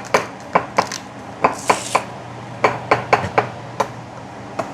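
Kitchen utensils clicking and knocking against a dish: a fork working in a bowl, about a dozen irregular sharp taps.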